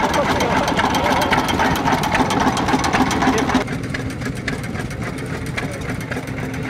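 Fairbanks Morse 3 HP Z-type stationary engine running with a steady, regular beat, and voices in the background. The sound drops a little after about three and a half seconds.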